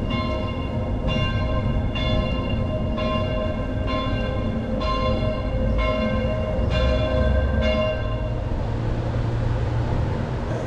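A single church bell striking about once a second, each stroke ringing on into the next, until it stops about eight seconds in. A low rumble runs underneath.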